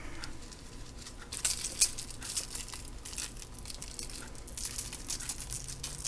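Grated Parmesan being shaken from a plastic shaker canister, the cheese pattering onto parchment paper on a baking pan: a run of quick, irregular, scratchy ticks that starts about a second and a half in.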